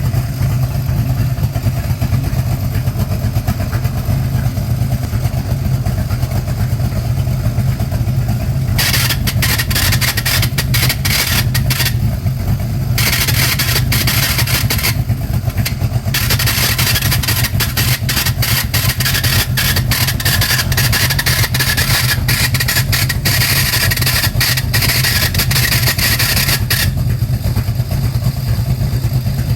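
De Tomaso Pantera GTS's V8 idling steadily. From about nine seconds in, a loud high-pitched rasping noise from the clutch cuts in and out several times, then stops near the end. It is the noise of a new clutch release bearing that is already faulty.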